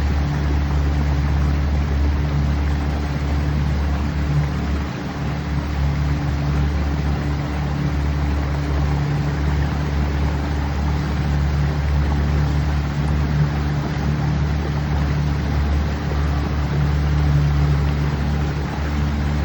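Boat motor running steadily underway, a constant low drone with a rush of water and wind over it.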